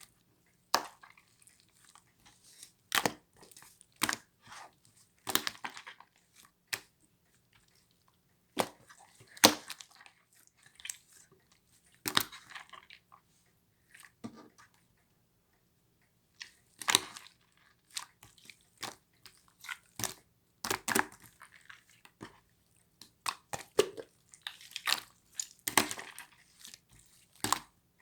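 Irregular short crunches and crackles coming in clusters, with brief quiet gaps between them.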